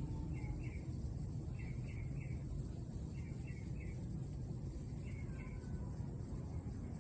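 A small bird chirping in short runs of two or three quick notes, repeated every second or two, over a steady low outdoor rumble.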